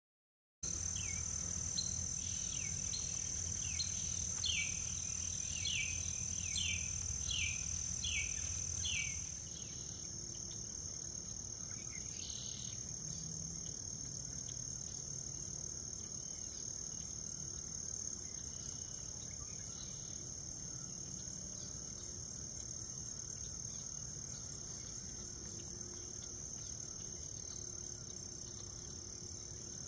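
Evening insect chorus: a steady high-pitched trill. For the first nine seconds it is joined by a run of about a dozen quick falling chirps, roughly two a second.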